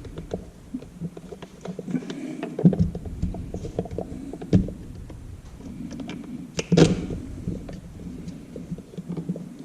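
Clicks and knocks of plastic parts being handled and fitted onto a YT-260 motorized pan-tilt camera head, with three louder thunks spread through.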